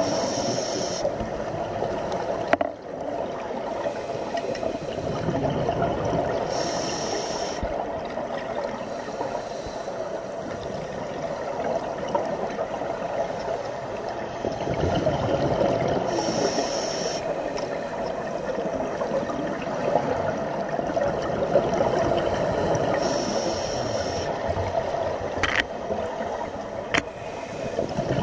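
Underwater sound picked up through a compact camera's housing: a steady muffled rush, broken about every six to nine seconds by a second-long hiss of scuba exhaust bubbles from the filming diver's regulator. A few sharp clicks or knocks stand out, the loudest about two and a half seconds in.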